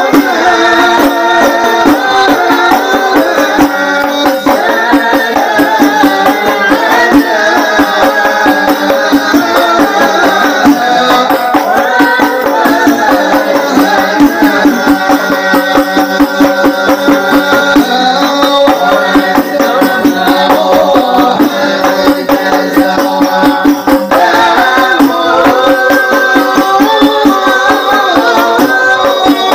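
Habsyi sholawat: voices singing devotional Arabic verses together over a fast, steady beat of hand-struck frame drums.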